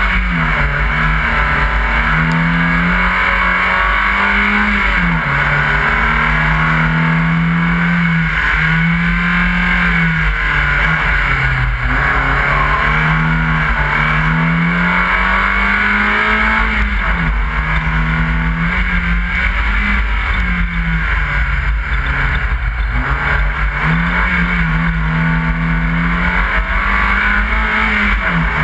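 BMW 318is rally car's four-cylinder engine driven hard along a rally stage, its pitch climbing under acceleration and then falling sharply about every five or six seconds at gear changes and lifts for corners, with steady wind and road noise.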